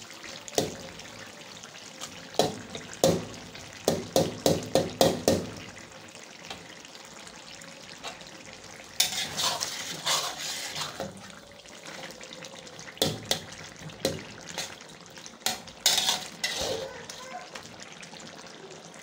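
Chicken and softened tomatoes sizzling in an iron karahi while a spatula stirs and scrapes, knocking against the pan off and on, with a quick run of taps about four seconds in.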